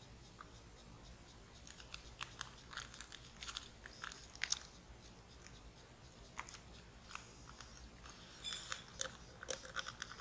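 Crinkling and rustling of packaging being handled, with irregular sharp crackles and clicks that grow busier near the end.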